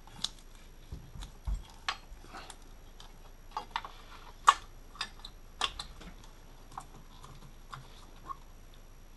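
Scattered clicks and light knocks of a bracket and its wiring being handled and fitted back into place on top of an engine, the loudest knock about halfway through.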